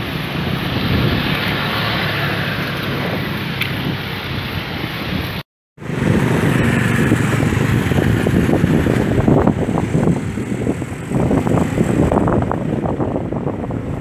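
Wind buffeting the microphone of a camera on a moving bicycle, over the steady noise of street traffic. The sound cuts out for a moment about five and a half seconds in and comes back gustier.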